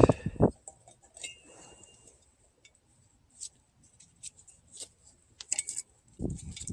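Metal parts being handled during a wheel hub install: a heavy clunk at the start, then scattered light metallic clicks and clinks.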